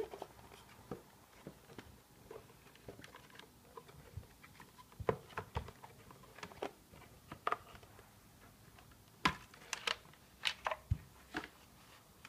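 Scattered light clicks and knocks of an electric motor and its plastic housing being handled and fitted together, with a cluster of sharper clicks about nine seconds in.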